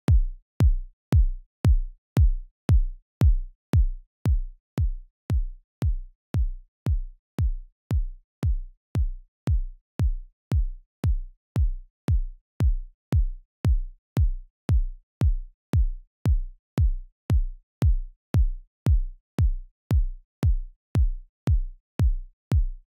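A soloed kick drum track playing alone: a steady beat of single deep kicks, about two a second, each a short click followed by a thump that drops in pitch.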